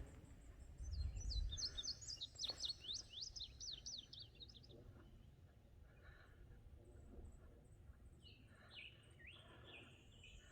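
A songbird singing: a fast run of high chirped notes starting about a second in, then a second, slightly lower run near the end, over a faint low rumble.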